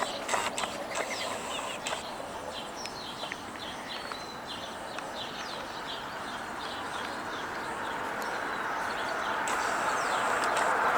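A small songbird singing a quick series of short chirping notes, with a few clicks near the start. A steady rushing noise swells louder toward the end.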